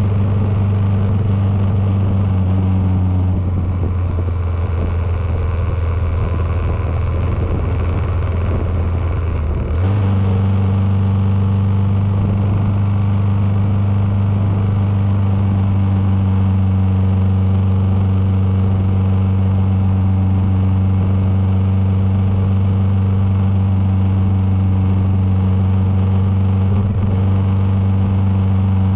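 Kawasaki KLR650's single-cylinder engine running steadily while riding. Its note eases off about three seconds in, then comes back up sharply at about ten seconds as the throttle is opened again, and runs on steady.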